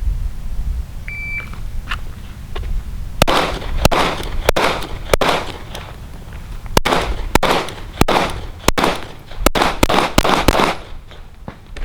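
A shot timer beeps once. About two seconds later a 9mm pistol fires a string of about eleven shots, roughly one every half second, with a pause of about a second and a half after the first four.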